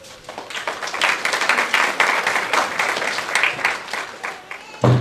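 Audience clapping and applauding, thinning out toward the end, with a brief loud sound right at the end.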